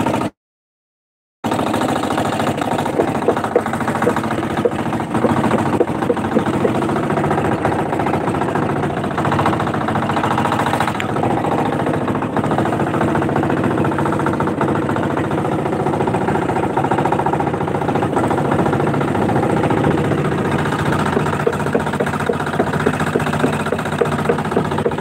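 Engine of a motorised outrigger boat running steadily under way, an even loud drone, cut by a brief gap of silence about a second in.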